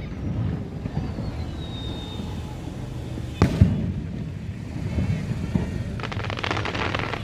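Fireworks display: a steady low rumble of bursts, a faint falling whistle in the first two seconds, two sharp bangs in quick succession about three and a half seconds in, and a rapid crackling near the end.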